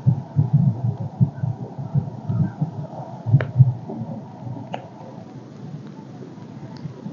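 Strong gusty wind buffeting the microphone, an uneven low rumbling that pulses several times a second and eases near the end, with a couple of sharp clicks in the middle.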